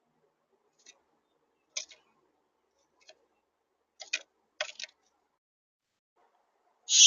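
Bird pecking at seed on a feeder right beside the feeder camera's microphone: short, sharp taps and clicks, a few scattered ones at first, a quick cluster about four seconds in, and louder ones starting just before the end.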